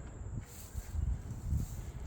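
Two footsteps about a second apart on rain-soaked garden ground, with foliage rustling, over a steady high trill of a cricket.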